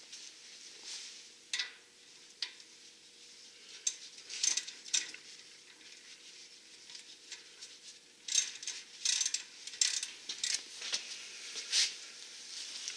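Irregular metallic clicks and short rattles of hand tools and brake hardware being handled and fastened, more frequent in the second half.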